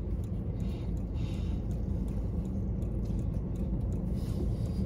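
Steady low rumble inside a car, with faint wet clicks and smacks of someone chewing a big bite of burrito.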